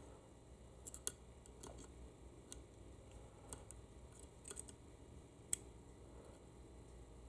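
Faint, scattered metal clicks and light scraping as a pick works against the bore of a U140 automatic transmission part, trying to get behind a plug to pull it out. There is a low steady hum underneath.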